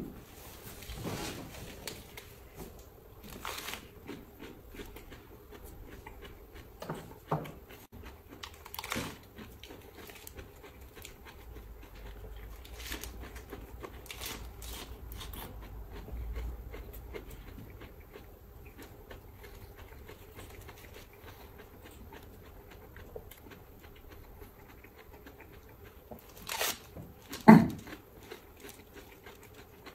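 A man biting and chewing raw lettuce leaves, with irregular crisp crunches throughout. A much louder short sound stands out near the end.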